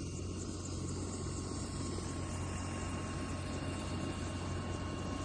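Steady low mechanical drone of a running engine, unchanging in level.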